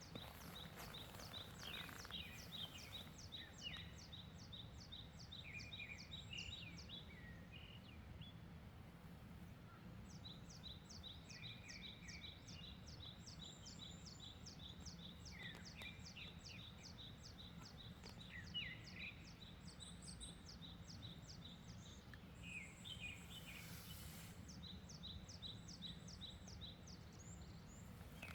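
Faint birdsong: one bird repeats a short high note about five times a second in long runs, and others chirp now and then. A steady low rumble of wind lies underneath.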